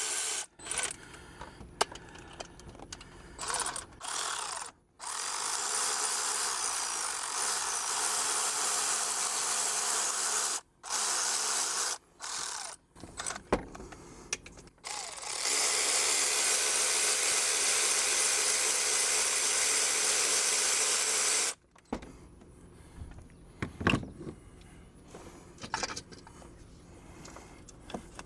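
Handheld power tool running in bursts to back out the water pump's long 15 mm bolts. The two longest runs last about five to six seconds each, with short runs and metallic clicks between them.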